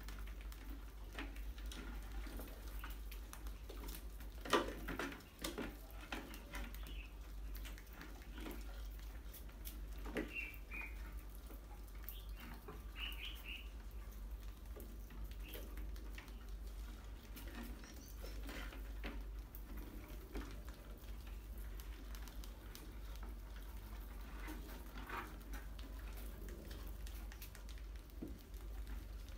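A group of rats scurrying and scratching on a tiled floor and against glass jars: scattered clicks and scrabbling, with a few short high squeaks. One sharp knock stands out about four and a half seconds in.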